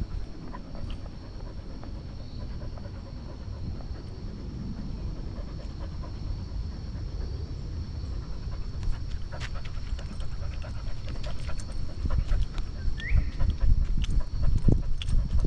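A husky panting steadily, with scattered knocks and scuffs growing louder and more frequent in the second half.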